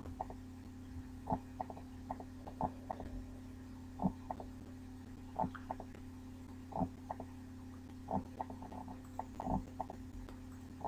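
Computer mouse clicking at irregular intervals, short separate clicks a fraction of a second to over a second apart, as points of a drawing are placed, over a steady low hum.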